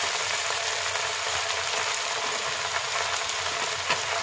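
Sanai flowers frying in hot oil in a kadhai: a steady sizzle with faint crackles.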